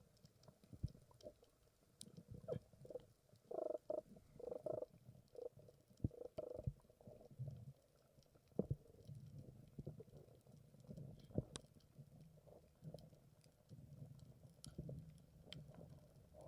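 Faint, muffled underwater gurgling and low rumbling, with scattered sharp clicks.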